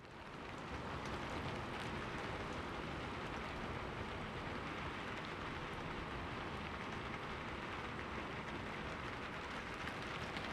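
Steady rain falling, an even hiss with fine drop ticks throughout, fading in at the start.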